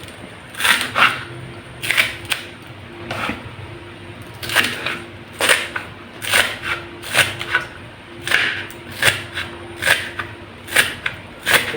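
Kitchen knife chopping green onions on a cutting board: sharp, irregular strokes about two a second, the crisp onion crunching under the blade.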